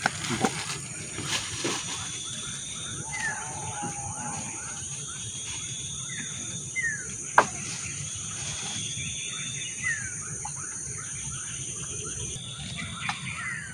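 Outdoor ambience: a steady high-pitched insect drone with a fast run of repeated chirps beneath it and a few short, falling bird calls. Several sharp knocks cut through, the loudest about seven seconds in.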